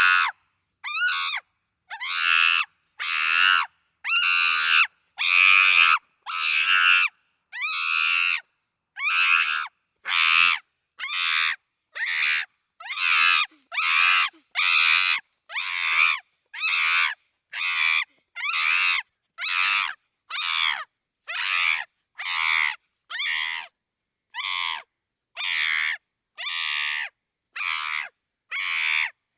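Chimpanzee screaming: a long run of short, high shrieks, about one a second, each separated by silence.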